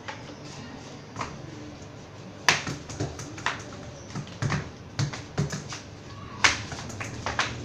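A football being dribbled and kicked on a hard floor, with footfalls. Sharp, irregular taps start about two and a half seconds in and come roughly two a second.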